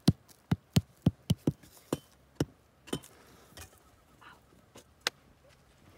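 A small metal-tipped hand pick tapping and chipping at crumbly volcanic tuff to free an augite crystal: sharp light clicks about four a second for the first two seconds, then a few scattered taps.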